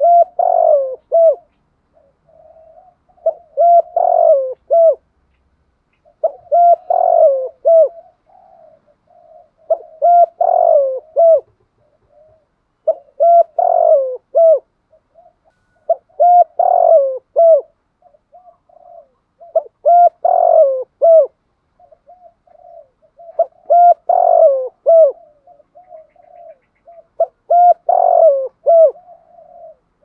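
Spotted dove cooing its phrase over and over, about one every three and a half seconds: each a soft lead-in followed by a run of clipped coos. It is the insistent 'thúc gù' cooing that Vietnamese bird-keepers prize in a decoy dove.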